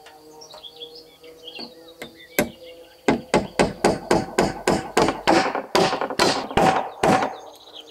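A hammer driving a nail into a timber beam overhead: a single blow, then a quick, even run of about fifteen blows, about four a second.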